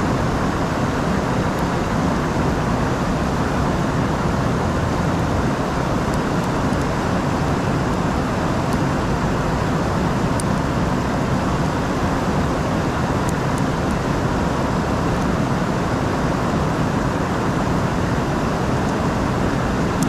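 River water rushing over rapids: a loud, steady rush.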